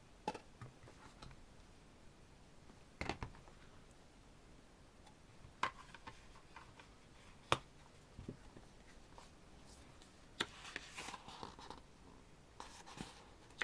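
Light handling of a CD and album packaging: a few separate clicks and taps, then paper rustling as the pages of the photo book are turned near the end.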